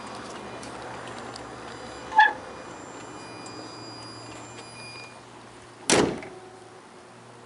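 Citroën Berlingo's bonnet slammed shut: one loud heavy thud with a short ring about six seconds in. About two seconds in there is a sharp metallic clink, over a faint low steady hum.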